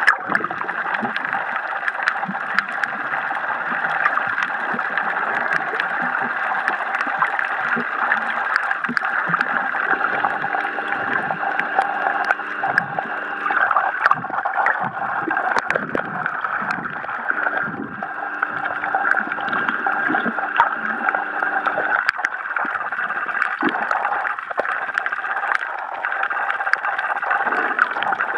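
Underwater sound picked up by a submerged camera: a steady muffled hum with water gurgling and scattered sharp clicks, and a lower droning tone that comes and goes twice in the middle.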